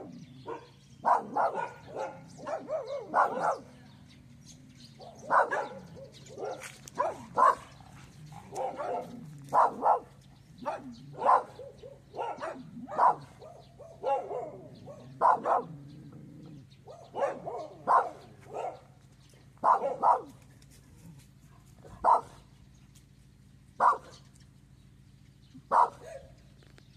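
Taiwanese native dog barking repeatedly: short sharp barks in quick pairs and triplets, thinning to single barks about two seconds apart near the end.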